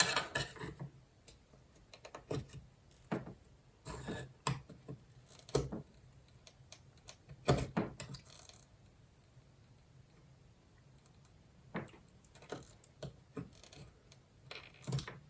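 Scattered light clicks and taps of a soldering iron tip against a mobile phone circuit board as its gold-plated contact pads are worked off, with one short scrape a little past halfway.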